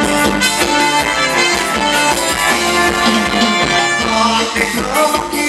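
Band playing upbeat Thai ramwong dance music with a steady beat and sustained melody lines.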